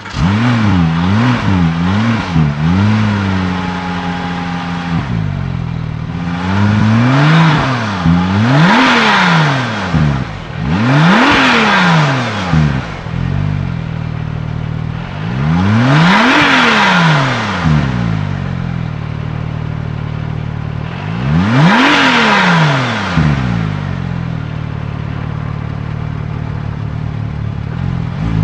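Porsche 911 GT2 RS's twin-turbo 3.6-litre flat-six revved repeatedly while stationary. It gives a few quick blips at first, then about five longer revs that rise and fall, settling back to a steady idle between them.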